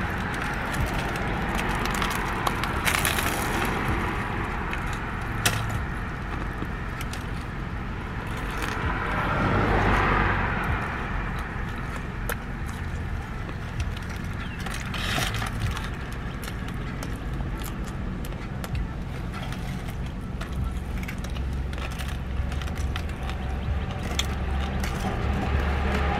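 Eating a crusty baguette banh mi: the crust crackles in short sharp crunches as it is bitten and chewed, over a steady low rumble.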